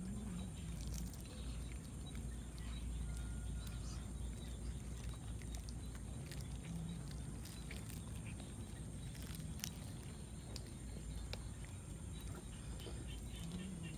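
Stray cats eating fish scraps off concrete: scattered faint chewing clicks and a few short low growls, over a steady low rumble.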